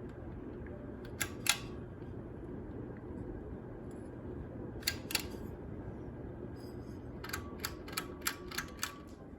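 A 42-inch Tropasair II ceiling fan's motor humming steadily. Sharp clicks break in: a pair about a second in, another pair about five seconds in, and a quick run of about six clicks near the end, some with a faint metallic ring.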